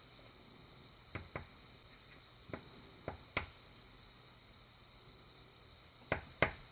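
Faint, scattered small metal clicks and taps as pin-tumbler pins are worked out of a Master Lock padlock's opened core, with a pause in the middle.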